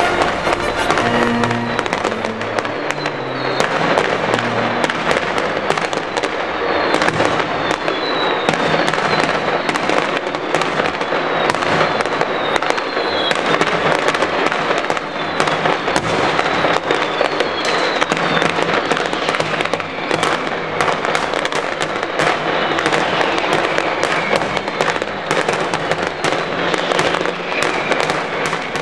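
Mascletà: strings of firecrackers going off in a dense, continuous barrage of bangs, with short falling whistles now and then.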